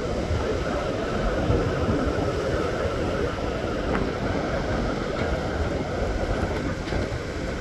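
Steady wash of surf breaking on a sandy beach, with a low, uneven rumble underneath.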